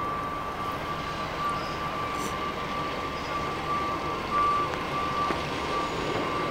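Railway station background noise with a steady high-pitched whine that runs on, with small breaks, over an even rumble.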